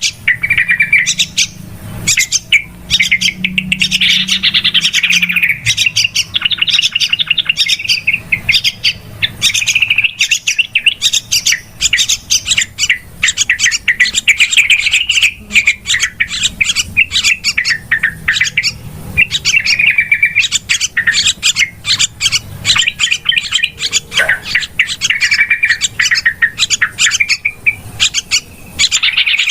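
Yellow-vented bulbuls calling in a continuous noisy chatter: rapid, many-a-second chirps mixed with short bubbling warbled phrases.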